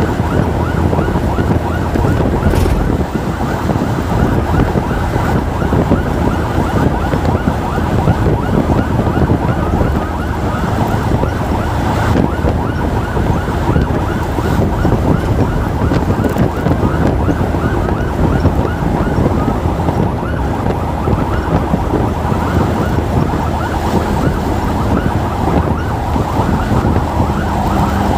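Electronic emergency sirens of an ambulance and its motorcycle escort sounding in a fast, repeating yelp without a break, over the low rumble of the moving motorcycle.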